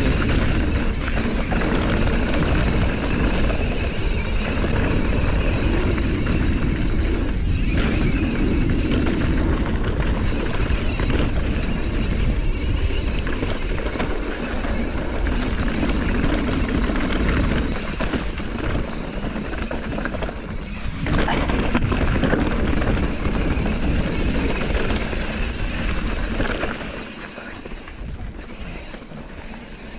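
Wind buffeting the camera microphone and tyres rattling over a rocky dirt trail as a mountain bike descends at speed, with a steady low rumble; it gets quieter near the end.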